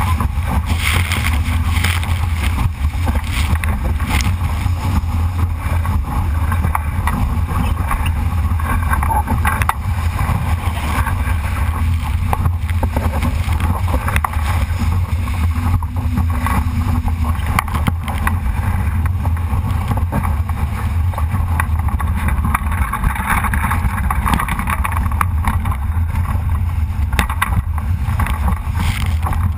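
Wind buffeting a GoPro microphone aboard a Solo sailing dinghy under way in strong wind, a heavy low rumble over a steady rushing hiss of wind and water.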